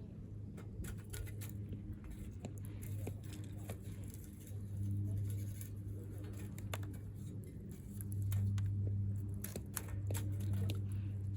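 Small wood fire crackling in a compact Firebox folding stove: irregular sharp snaps and pops over a low steady rumble that grows louder near the end.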